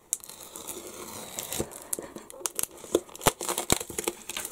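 Cardboard book mailer being slit open along its edge with a small blade, giving rustling and scraping with irregular sharp clicks and crackles as the card and tape give.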